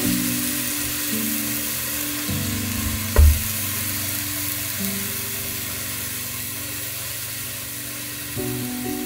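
Heavy rain beating on a camper van, a steady hiss, under soft background music with held notes. A single low thump about three seconds in.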